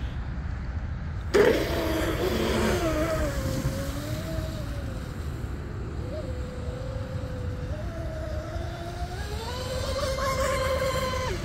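Twin-motor RC speed boat's motors whining as it runs; the whine starts suddenly about a second in, dips and rises in pitch with the throttle, climbs higher near the end and then cuts off suddenly.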